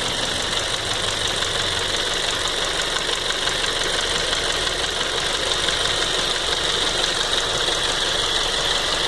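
2007 Ford Focus 2.0 Duratec four-cylinder engine idling steadily with a constant ticking noise. The owner has heard that noisy fuel injector rails can cause it.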